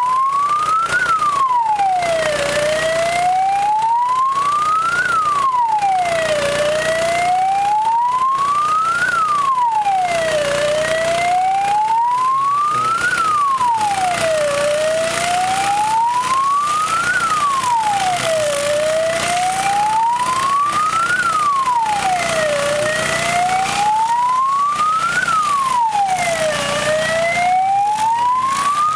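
Fire engine siren on a steady wail, its pitch climbing slowly and dropping back quickly, about once every four seconds.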